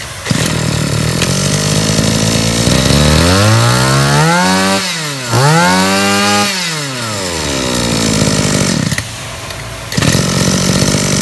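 A Stihl FS26 brush cutter's 26 cc two-stroke engine running. It is revved up hard twice in quick succession about halfway through, with a brief drop between the two. The revs then sink slowly back down, and the engine picks up again near the end.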